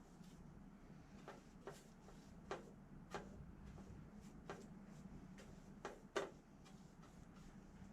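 Faint, irregular light clicks and taps, about a dozen, over a low steady hum; the sharpest tap comes about six seconds in.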